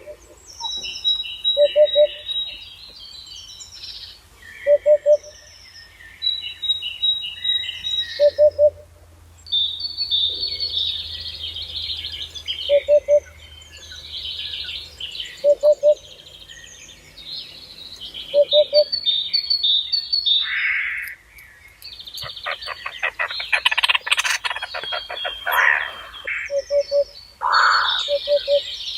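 Several birds singing at once: a low, short double note repeats every two to three seconds beneath higher twittering and chirping phrases, with a fast rattling trill about three quarters of the way through.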